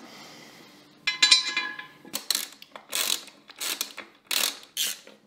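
Intake manifold being fitted onto a Volvo B5254T engine. There is a knock as it goes on and a brief ringing contact about a second in. Then comes a run of short, sharp clicking-scraping strokes about every half second as it is worked into place and fastened.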